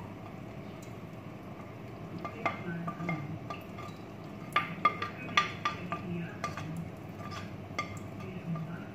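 A spoon and plate clinking and scraping against each other and the rim of a nonstick wok as diced cheese is pushed off the plate into the cream sauce: scattered sharp clinks, thickest about four to six and a half seconds in, over a steady low hum.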